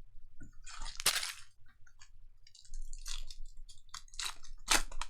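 Crinkling and rustling of trading-card packaging and cards being handled, in several short bursts; the loudest comes near the end.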